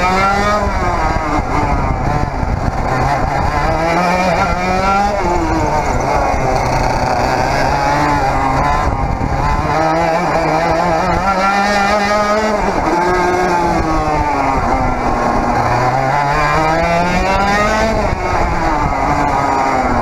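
100cc Parilla reed-valve two-stroke kart engine under hard driving, close up from on board: the note climbs steadily on each straight and drops off into each corner, rising and falling five or six times.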